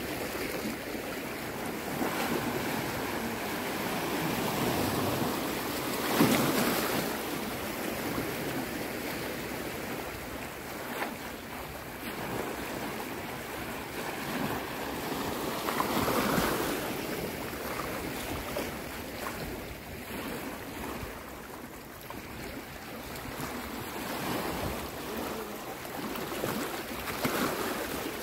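Small sea waves breaking and washing in the shallows, swelling and easing every several seconds, with wind buffeting the microphone.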